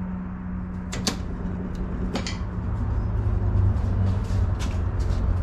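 Hydraulic floor jack being let down under a front suspension control arm, with a few sharp metal clicks and clunks as the hub and knuckle assembly drop, over a steady low hum.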